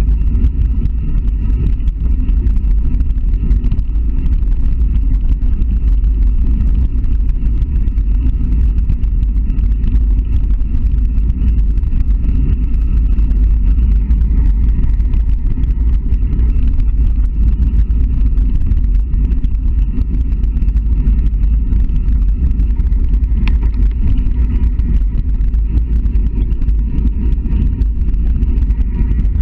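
Mountain bike being ridden along a dirt forest track: wind buffeting the microphone and tyres rolling on the packed earth and gravel make a steady, loud low rumble.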